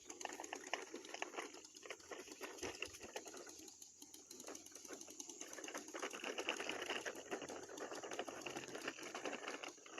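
Toy lawn mower being pushed along, its plastic mechanism and wheels giving a fast, continuous clicking rattle.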